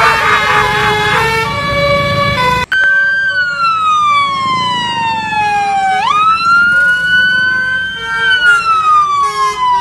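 Siren wailing: one pitch slowly falling, swooping back up about halfway through, then slowly falling again. It follows a short multi-note tune that cuts off abruptly near the start.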